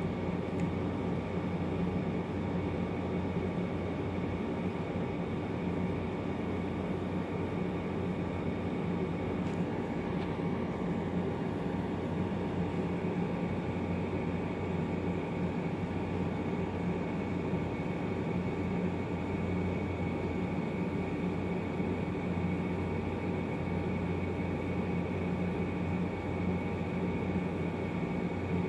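Steady, unchanging machine hum with a low drone and a faint high tone.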